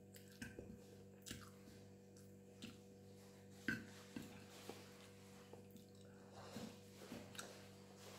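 Faint mouth sounds of someone eating spicy instant ramen noodles: soft chewing with scattered wet smacks and slurps, the sharpest a little before halfway, over a steady low hum.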